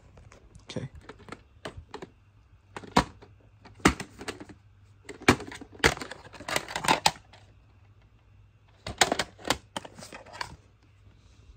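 Plastic VHS clamshell cases clicking and knocking against one another as they are picked up, shuffled and set down, in irregular clusters that are busiest in the middle and again near the end.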